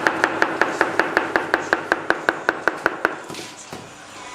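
Rapid, evenly spaced mechanical clicking, about five or six clicks a second, each with a short ringing tone, over a steady hum; the clicking stops about three seconds in.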